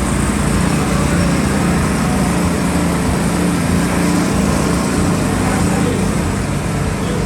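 A motor running steadily, a low hum under an even hiss.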